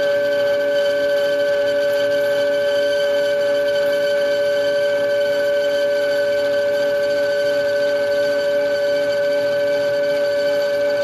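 Metal lathe running at a steady speed with a constant high-pitched whine, held at one pitch throughout, while a finishing spring pass is taken on aluminum stock.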